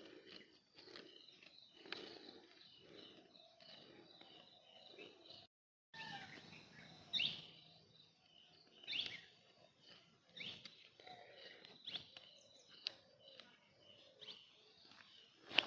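Birds chirping now and then over faint background noise, with short calls that slide down in pitch, and a brief dropout to silence about six seconds in.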